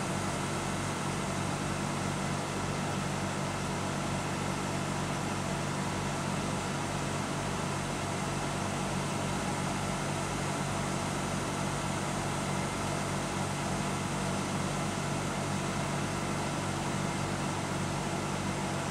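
ÖBB Cityjet (Siemens Desiro ML) electric multiple unit standing with its ventilation and electrical equipment running: a steady rushing fan noise with a few held humming tones.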